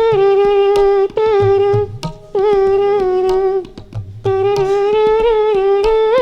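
A solo melody of long held notes with small wavers in pitch, broken by short pauses every second or two. It is a wedding farewell (vidaai) tune played by an amateur, not keeping to the scale.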